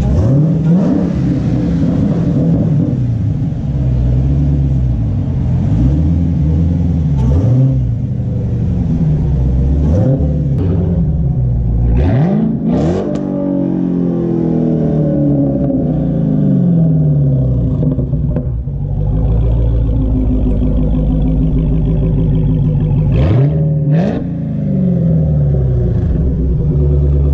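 Dodge Challenger Hellcat's supercharged 6.2-litre HEMI V8 running with its mid mufflers deleted, the exhaust note climbing sharply and dropping back about five times between stretches of lower running.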